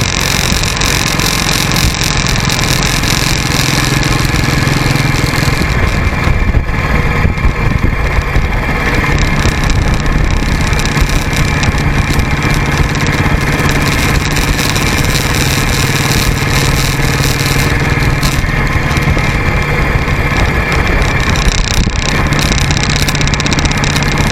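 Motorcycle engine running steadily on the move, with heavy wind rush over the microphone and road noise. The wind's hiss drops for a few seconds about a quarter of the way in, then builds again.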